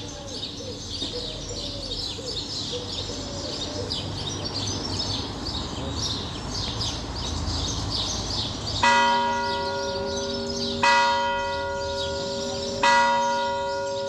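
A church bell tolling slowly: three strokes about two seconds apart, beginning about nine seconds in, each ringing on with a long hum. Small birds chirp throughout.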